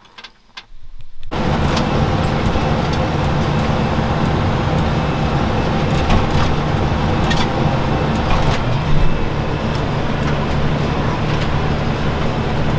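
About a second in, a tractor engine starts in abruptly and runs steadily with a deep hum, with a few sharp knocks and rattles over it.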